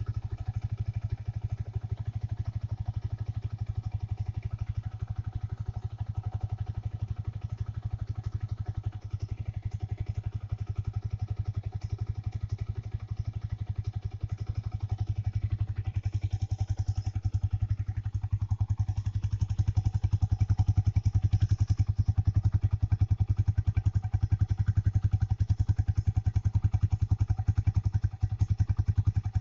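Older-model Yamaha Vixion motorcycle's single-cylinder engine, just serviced, running steadily at idle in a rapid even pulse. It gets a little louder from about two-thirds of the way in.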